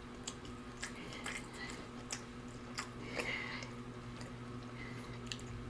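A person chewing food with the mouth close to the microphone: scattered small wet clicks and smacks. A steady low hum runs underneath.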